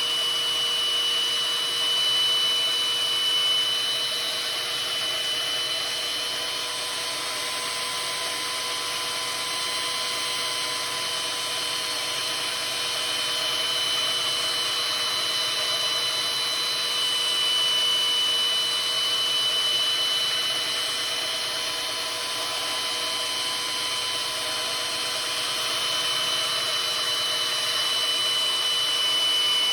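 Electric grinder running steadily while sharpening a steel maul, a constant motor whine with a grinding hiss that swells slightly a few times.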